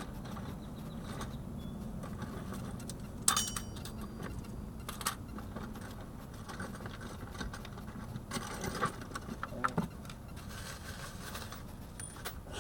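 Metal hand tools and sockets clinking and rattling now and then as they are handled, with one sharp clink about three seconds in and a cluster of clicks near the end, over a steady low hum.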